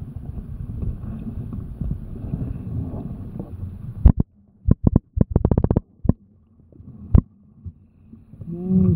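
Muffled underwater rumble of water moving around a submerged action camera's housing for about four seconds. It then drops to near silence broken by sharp clicks, a fast run of them about five and a half seconds in. A short low pitched sound comes just before the end.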